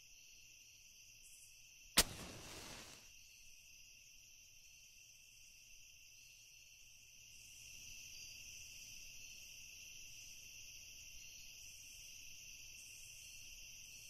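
Steady high chirring of crickets, a night insect chorus, growing slightly louder about seven seconds in. One sharp hit about two seconds in rings out for about a second and is the loudest sound.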